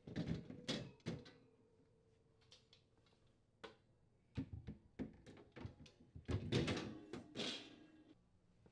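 Wire freezer shelves being slid onto their supports and set in place: scattered light clicks, rattles and knocks. The busiest spell comes about six to eight seconds in.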